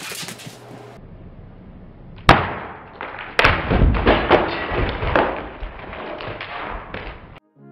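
Sugar-glass prop shattering over a person's head, replayed slowed down: a sharp knock a couple of seconds in, then about four seconds of deep, drawn-out crunching and clattering of shards.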